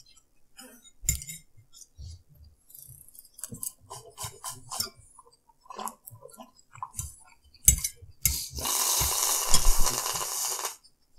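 A metal fork clinking and scraping on a ceramic plate of noodles, with small clicks of eating, then a loud slurp lasting about two seconds near the end.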